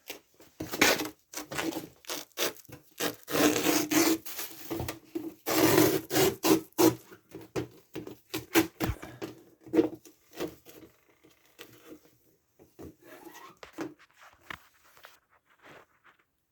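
Hands rubbing and scraping along an Amana dryer door and its new door seal while working the glued seal around the door, in many short, irregular strokes that thin out and stop near the end.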